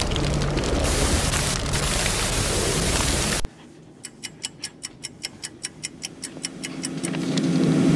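Edited sound effects. First a loud rushing noise with a low steady hum from a burning-logo intro, which cuts off abruptly about three and a half seconds in. Then a fast, even ticking, about four ticks a second, while a low hum and rushing noise swell up toward the end.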